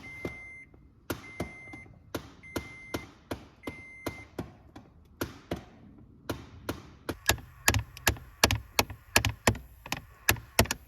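A 2011 Toyota Tacoma's recirculation door actuator behind the dash clicking, a regular hammering of about three clicks a second that grows louder and heavier about two thirds in: the sign of a failing HVAC door actuator. A beeping dash chime sounds four times in the first few seconds.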